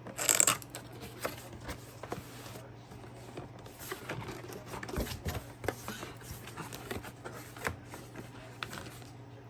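Box and packaging being handled and opened: a short, loud rustle about half a second in, then scattered light scrapes, rustles and clicks.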